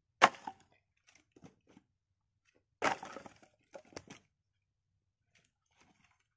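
Split firewood pieces dropped onto a woodpile, clattering wood on wood. A sharp knock comes just after the start, then a cluster of knocks about three seconds in and two more just before four seconds.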